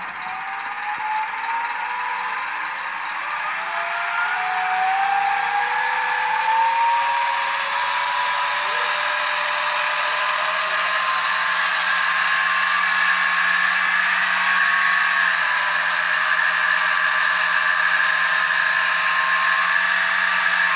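3 kW brushless motor driving a Servovision e-CVT3K electric belt CVT on a test bench, speeding up: a whine that rises in pitch over the first six or seven seconds as it gets louder, then holds steady over a hiss of belt and pulleys.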